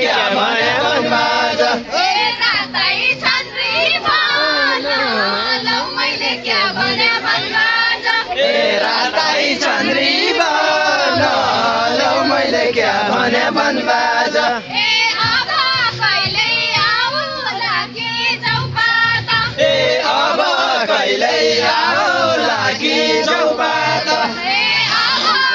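Many voices singing together in chorus, loud and continuous.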